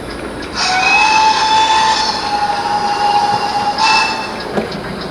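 Sound decoder in a Hornby OO gauge GWR 'King' model playing a recorded steam whistle. It is one long blast of about three seconds that rises slightly in pitch as it opens, then holds steady, and brightens briefly just before it cuts off. Under it runs a faint, regular exhaust beat from the running locomotive sound.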